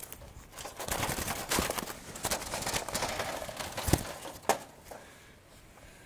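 Handling noise from a wooden, wire-mesh bird trap being opened and a dove being taken out by hand: irregular rustling, clicks and knocks, with a sharp knock about four seconds in, then it goes quieter.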